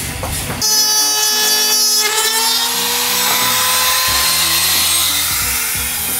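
Small corded handheld router running with a steady high motor whine that drifts slowly in pitch, starting just under a second in, over background music.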